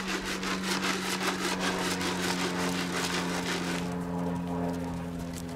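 A small engine running at a steady pitch, with a fast rhythmic rasping of about five strokes a second over it that stops about four seconds in.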